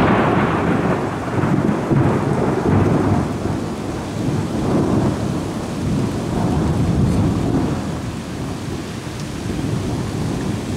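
Rolling thunder rumbling in several waves and slowly dying away, over steady rainfall.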